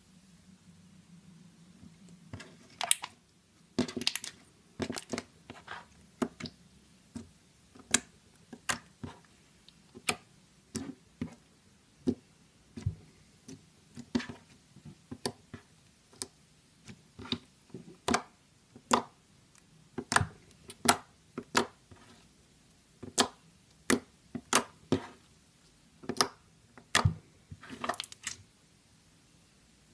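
Blue slime being squeezed and pressed by hand, giving irregular sharp pops and clicks as air pockets burst, about one or two a second after a short quiet start.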